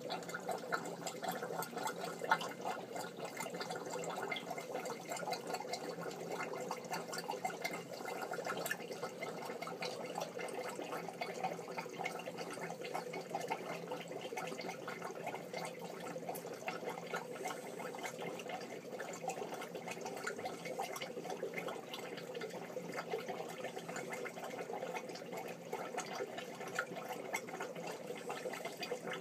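Aquarium water circulating: a steady trickle and bubbling with a fine, continuous crackle.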